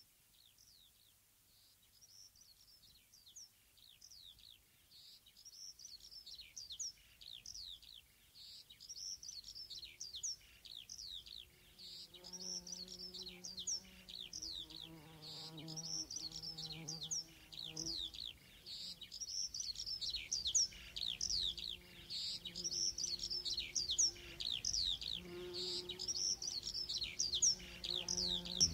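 Recorded birdsong fading in: quick high chirps repeating in short phrases, growing louder. From about twelve seconds in, a fly's buzz joins, coming and going in stretches of one to a few seconds.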